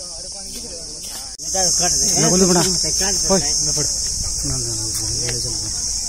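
Steady high-pitched drone of insects, cut off for an instant about a second and a half in and then louder, with indistinct voices talking underneath.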